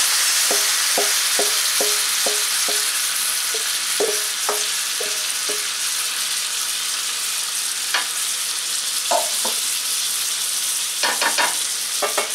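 Chicken, onion and potatoes sizzling steadily in a frying pan as tomato sauce is scraped in from a metal bowl. About six short ringing knocks of a utensil against the bowl come in the first few seconds, about two a second, followed by scattered clinks and scrapes, with a quick cluster near the end.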